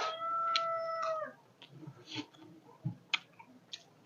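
Rooster crowing: the long held end of a crow that drops in pitch and stops about a second in, followed by a few faint clicks.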